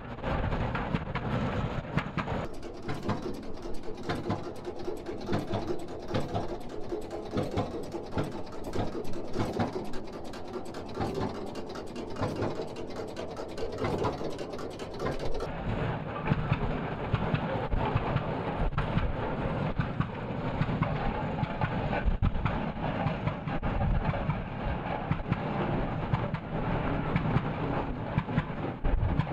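1913 J. I. Case 30-60 tractor's engine running, a steady string of closely spaced exhaust beats. The tone of the sound shifts about two and a half seconds in and again about fifteen seconds in.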